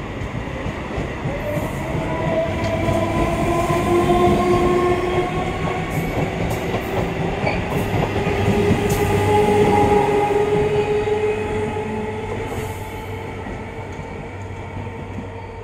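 Electric multiple unit (EMU) local train moving along the platform, its electric traction motors whining and slowly rising in pitch as it picks up speed, with wheels clicking over the rail joints. It fades over the last few seconds as the last coach goes by.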